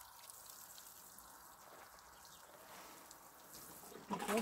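Water sprinkling from the rose of a plastic watering can onto loose garden soil and plants, a soft, steady patter like light rain. A brief louder sound comes near the end.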